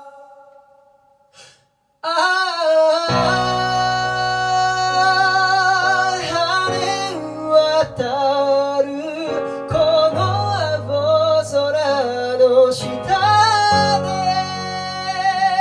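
Live pop song with acoustic guitar: the music stops for about two seconds of near silence, then a wavering high melody sung without words comes in, and the full band with a steady bass line joins a second later.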